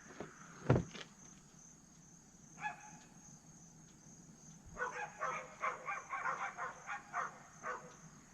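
Faint animal calls in the background: one short call, then a quick run of repeated pitched calls a few seconds later. A single knock comes about a second in.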